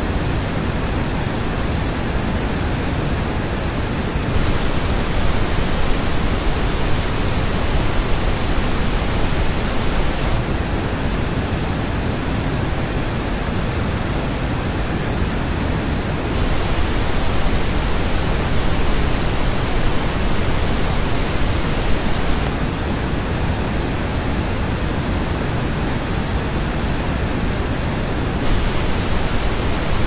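Steady pink noise test signal, switching about every six seconds between the flat original reference and the same noise as reproduced by Philips Fidelio X2HR headphones. In the headphone passages the hiss is coloured, with a strong peak high in the treble and dips around it. The headphone version plays three times (at the start, near the middle, and near the end), with the plain reference noise in between.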